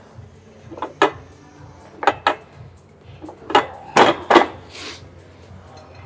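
Sharp metal clanks and clinks of gym weights and machine parts, coming in quick pairs, the loudest cluster about four seconds in.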